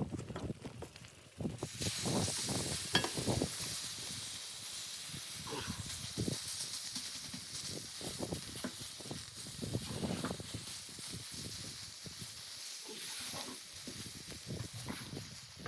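A steady high hiss that sets in about a second and a half in, with scattered soft crackles and knocks under it; a few sharper knocks come just before the hiss starts.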